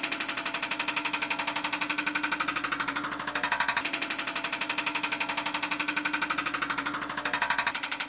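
Hydraulic breaker on a Bobcat 753 skid-steer loader pounding concrete: a rapid, even hammering, with the loader's engine running underneath.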